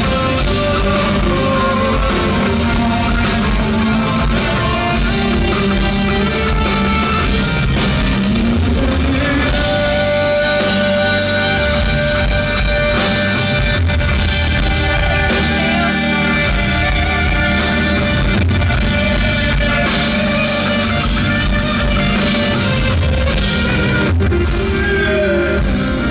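Live rock band playing an instrumental passage between sung verses: guitars over bass and drums, loud and steady.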